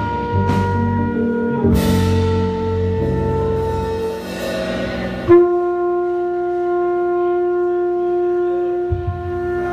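Live band playing: horn over drum kit, bass and keyboard, with cymbal crashes. About five seconds in the band cuts out and one long note is held.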